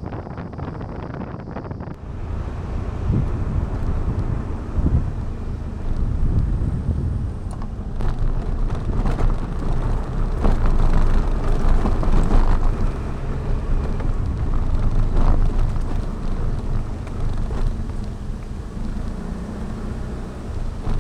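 Small scooter engine running on the move, mixed with wind buffeting the microphone in gusts that swell and fade.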